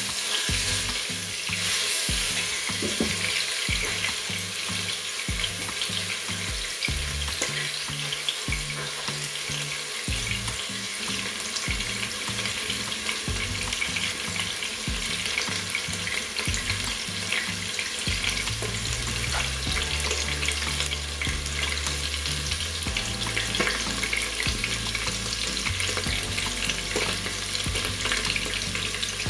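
Steak searing in hot oil in the inner pot of a Chef iQ electric pressure cooker on its sear/sauté setting: steady sizzling and crackling.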